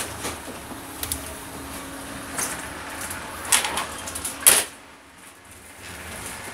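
Metal door of a train carriage being worked: clicks and knocks from the handle and latch, then a loud bang about four and a half seconds in as it shuts, over the steady running noise of the train.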